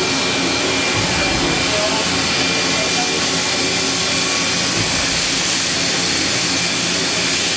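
Fadal 4020HT vertical machining center running a dry-run program with its spindle turning and no cutting: a steady whir and hiss with a faint, constant high whine.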